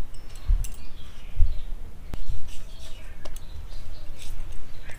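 Small birds chirping, with a few sharp clicks and low thumps from handling close by.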